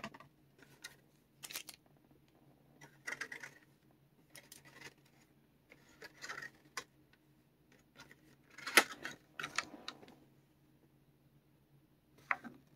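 Cardboard booster box and the plastic bags of HeroClix figures being opened and handled: intermittent rustling, crinkling and small clicks, with the loudest crinkle about nine seconds in.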